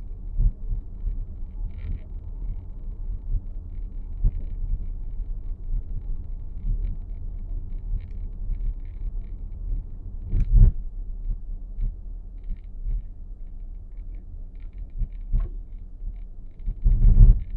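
Low road rumble inside the cabin of a moving 2023 Nissan X-Trail e-POWER, broken by occasional sharp knocks from the dashboard, the loudest about ten and a half seconds in. The knocks are the abnormal dashboard noise the owner is recording.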